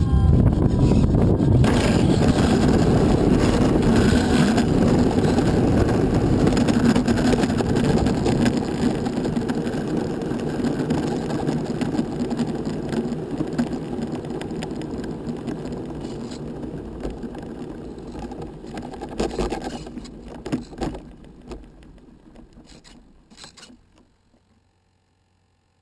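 Model plane's landing-gear wheels rolling over rough asphalt, a dense rumble heard close from on board. It fades as the plane rolls to a stop, with a few clatters near the end, then goes quiet.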